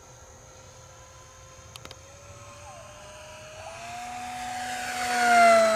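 E-flite RV-7 1.1 m electric RC plane's upgraded brushless motor and propeller whining as the plane comes in on a low pass. The whine swells from faint to loud, rising slightly in pitch, and is loudest just before the end as the plane passes close.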